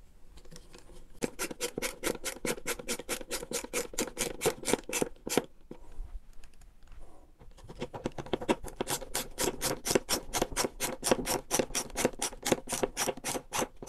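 OX ratchet screwdriver clicking fast and evenly, about six clicks a second, in two spells with a short pause between, as two retaining screws are driven up into the underside of a floating shelf.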